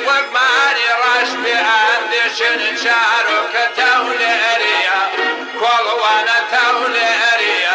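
Kurdish folk song recording playing: a continuous, wavering and ornamented melody over a full musical accompaniment.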